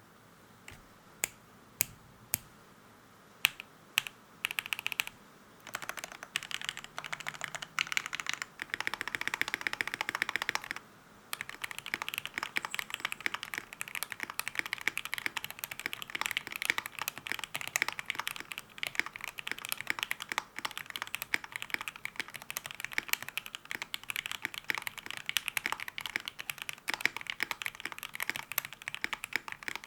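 KBD67 Lite R3 mechanical keyboard with Akko Jelly Black linear switches, PBT keycaps and a tape mod, without mute silicone. Single keys are pressed one at a time for the first few seconds, then come short flurries of keystrokes, and from about eleven seconds on it is typed on quickly and without a break.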